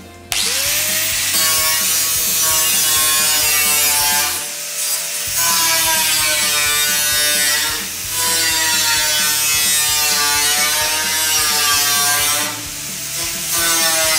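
Angle grinder spinning up and grinding the steel wheel-arch seam of a car body shell, its pitch sagging and wavering as it is pressed into the metal. It eases off briefly three times.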